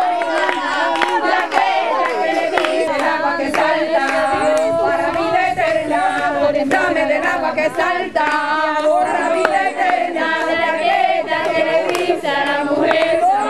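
A Pentecostal congregation singing together, many voices overlapping, with hand-clapping.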